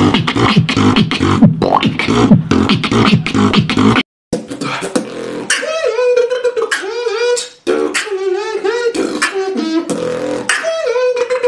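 Beatboxing: a dense, bass-heavy vocal beat of kicks, snares and clicks. After a short break about four seconds in, a lighter beat of sharp clicks continues under a wavering vocal melody.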